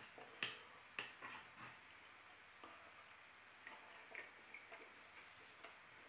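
A handful of faint, scattered clicks and taps of a knife and fork against a plate, with soft chewing, over near silence.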